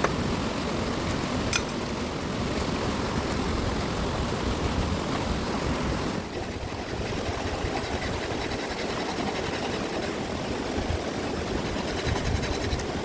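Steady rushing of a fast-flowing river, with a single sharp click about a second and a half in.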